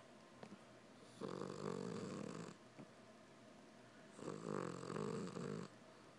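A sleeping cat snoring, like a person asleep: two snores, each about a second and a half long and some three seconds apart, with quiet breathing between.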